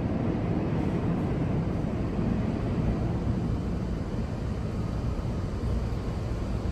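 Steady low rumble of a New York City subway train running along the track through the station.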